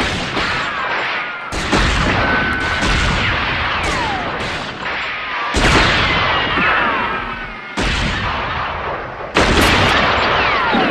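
Spaghetti-western gunfight sound effects: a string of gunshots, about five loud ones with smaller shots between, each ringing out in a long echoing tail, with falling ricochet whines after several of them.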